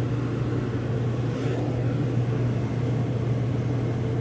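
RV air conditioner running on cool, set at 55 degrees: a steady low hum with air rushing from the vent.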